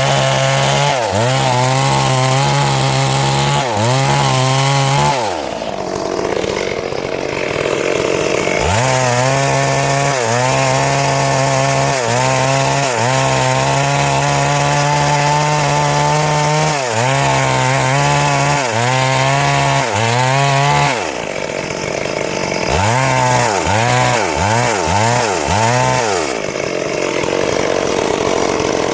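Stihl MS 382 two-stroke chainsaw running hard while cutting wood, its engine pitch repeatedly dipping and recovering as the chain bites in. The clear engine note drops out a few times and then resumes.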